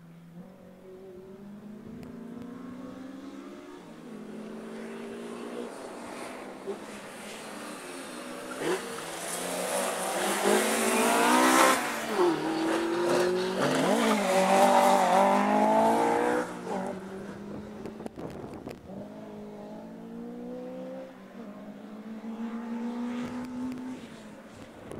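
Mk2 Ford Escort rally car's engine approaching and revving hard, the pitch climbing and dropping with throttle lifts and gear changes as it passes, loudest about halfway and then fading away. Another rally car's engine comes up in the last few seconds.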